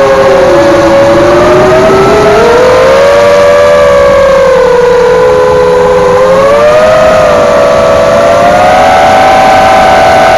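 Eachine Falcon 250 racing quadcopter's brushless motors and propellers whining in flight. Several pitches rise and fall separately as the throttle and attitude change, with a rise in the middle and a higher, steadier stretch near the end.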